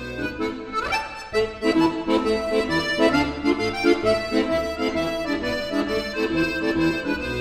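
Instrumental background music, a melody over a steady rhythm.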